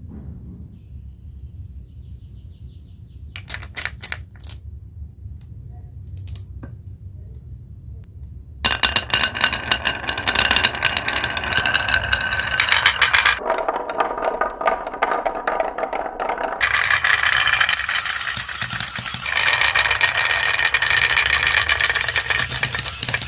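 Glass marbles rolling and clattering down a marble-run track: a few separate clicks early on, then from about nine seconds in a dense, continuous rattle of many marbles.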